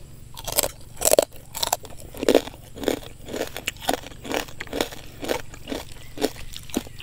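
Crispy pork rind (khaep mu) being bitten and chewed close to the microphone: crisp crunches, loudest in the first couple of seconds, then steady chewing at about two chews a second.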